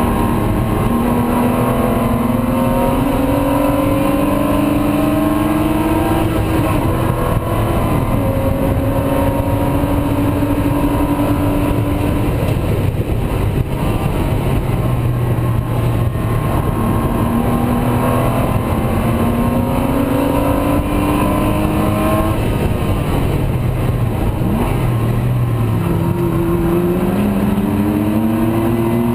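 Porsche Spec Boxster's flat-six engine heard from inside the cockpit at race pace: pitch climbing through the gears with a drop at each upshift. It lifts off twice, the pitch sinking as it slows for corners, then pulls hard again near the end.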